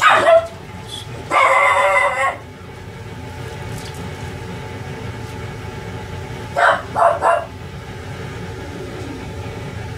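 A dog barking: a short bark right at the start, a longer held yelp about a second in, then three quick yips about seven seconds in.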